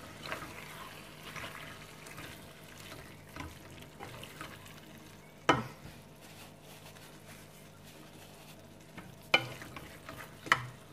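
Wooden spatula stirring chicken and spinach frying in a metal pan, with a steady low sizzle and scraping. A few sharp knocks of the spatula against the pan: a loud one about halfway through and two near the end.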